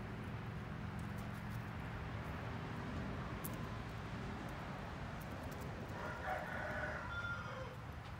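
Rooster crowing once, starting about six seconds in and lasting about two seconds.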